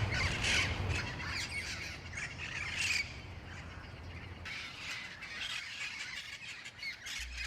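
Feral parrots squawking, repeated harsh calls with a short lull about three seconds in.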